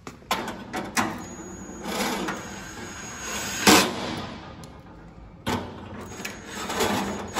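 Ryobi cordless drill-driver running in short bursts as it drives fasteners into the grill's cart, with clicks and knocks of metal parts in between and one sharp knock about halfway through.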